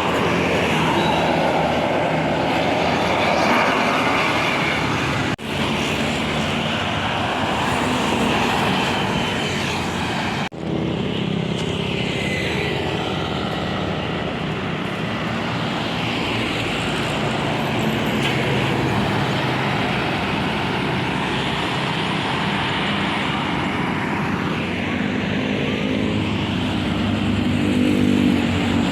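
Road traffic with large buses passing, engines and tyres running steadily. The sound breaks off abruptly twice in the first half, and a stronger engine hum builds near the end.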